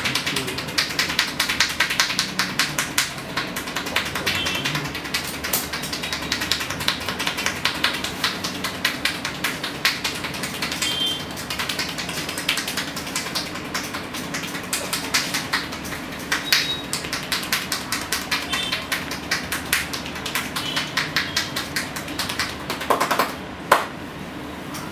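A barber's hands rapidly tapping and chopping on a man's head in an Indian head massage, a fast, steady patter of many light strikes a second. It stops near the end after one sharper slap.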